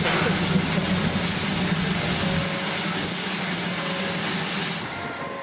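C11 steam locomotive letting off steam: a loud, steady hiss that cuts off sharply near the end, over a low hum that fades out about halfway.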